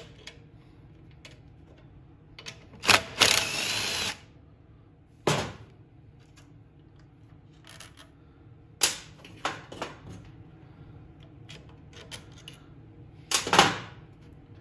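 Cordless drill-driver spinning out the carburetor's 10 mm mounting fasteners in two short runs about three seconds in, then sharp clicks and knocks of metal parts as the carburetor is worked loose by hand.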